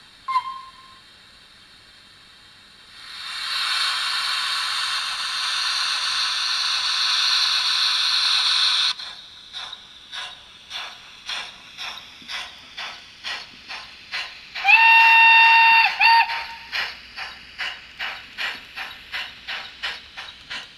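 Sampled steam-locomotive sounds from the DCC sound decoder in an H0 Gr.685 model locomotive, played through its small speaker. A brief whistle peep is followed by a steady hiss of steam from the cylinder drain cocks for about six seconds, which cuts off as exhaust chuffs begin, regular at about two to three a second, as the engine pulls away. Partway through the chuffing the whistle blows once for about a second and a half, followed by a short toot.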